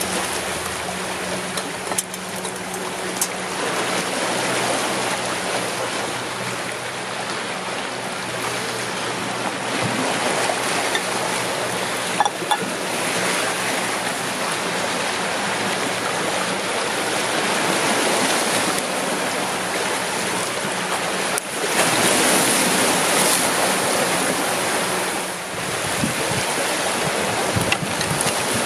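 Sea surf washing over shoreline rocks: a steady rush of waves that swells louder near the end, with a few brief sharp clicks over it.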